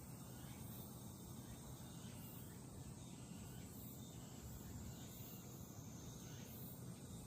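Faint outdoor ambience: very high-pitched insect chirping that pulses about every 0.7 seconds over a steady low rumble.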